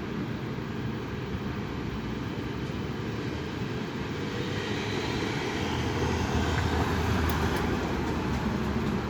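Strong wind buffeting the microphone: a loud, low noise that swells into a stronger gust in the second half.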